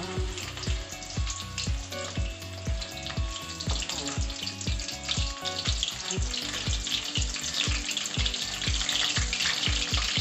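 Cut okra deep-frying in hot oil, a dense sizzle that grows stronger in the second half, just after the pieces have gone into the well-heated oil. Background music with a steady beat plays under it.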